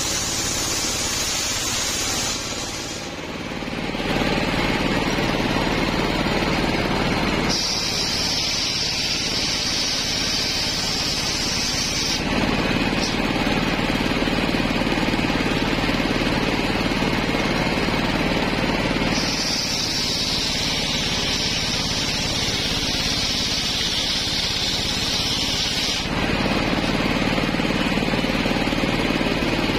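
Engine-driven circular saw ripping a coconut-wood log lengthwise, the engine droning steadily underneath. The cut adds a high hiss that comes and goes in three long stretches: near the start, around 8 to 12 seconds in, and from about 19 to 26 seconds in.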